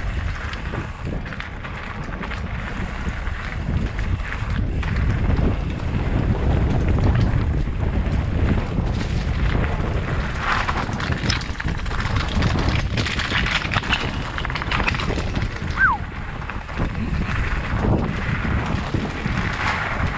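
Wind buffeting the microphone of a helmet-mounted GoPro Hero 7 on a mountain-bike descent, a steady low rumble, with more tyre and trail hiss through the middle. There is a brief falling squeak about 16 seconds in.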